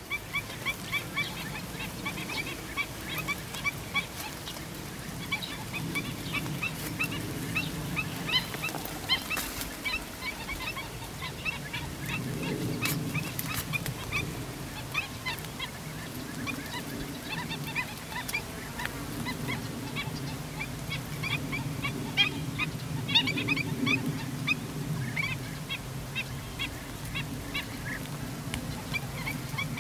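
Chorus of wild animal calls: many short, rapid high-pitched calls repeating throughout, over a steady lower chorus of calls.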